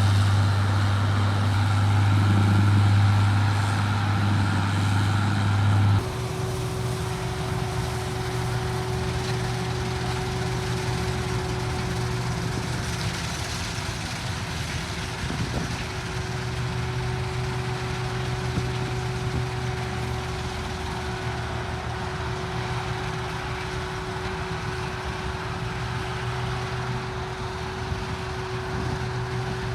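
Diesel engine of harvest machinery running steadily. About six seconds in, the sound changes abruptly to a quieter, steady drone with a faint constant whine.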